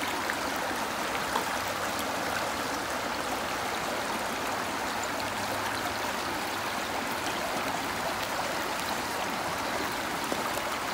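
Shallow stream running over a stony bed: a steady rush of flowing water.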